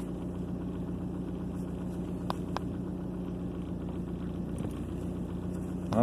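2003 Ford Focus four-cylinder engine idling steadily, heard from inside the cabin, after a cylinder 2 misfire repair that the owner says so far looks like it's working. Two faint clicks from the scan tool's buttons come a little past the middle.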